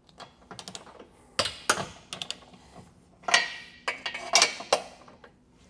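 Socket wrench ratcheting on a long extension as the 15 mm bolts holding a Tesla Model Y's rear crash bar are worked loose: sharp metal clicks coming in several short bursts.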